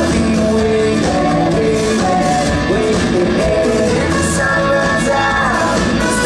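Live rock band playing loudly, with drum kit and guitars and some singing.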